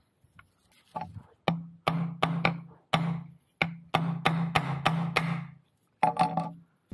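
Hammer blows driving a new pin into the gear selector fork on a John Deere tractor's selector cover: about a dozen quick strikes, each with a short metallic ring, with a brief pause before the last couple.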